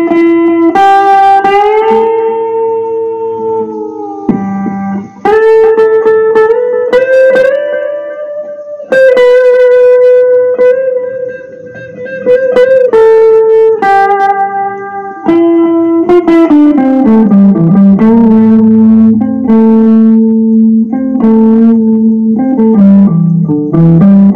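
Electric guitar playing a slow blues-rock lead line of long sustained notes, with a note bent upward about eight seconds in and a falling slide a few seconds later.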